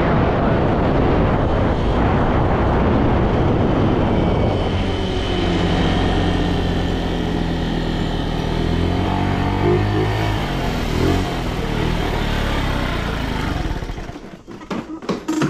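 50cc moped riding along, its engine running under a rush of wind on the microphone for the first few seconds, then a steadier engine drone as it slows. Near the end the engine sound drops away as the moped pulls up, followed by a few short knocks.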